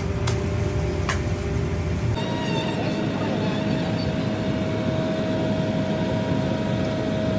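Steady running noise of farm machinery. About two seconds in it changes abruptly to a different machine sound with less rumble and a held steady whine.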